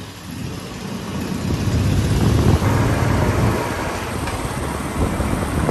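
Royal Enfield 'Bullet' motorcycle running on the move, heard from the pillion seat with wind on the microphone. The rumble gets louder over the first two seconds or so, then holds steady.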